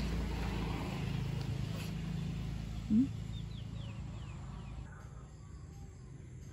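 Steady low hum in the background, with one short rising vocal squeak about three seconds in and a few faint high chirps after it; the hum fades about five seconds in.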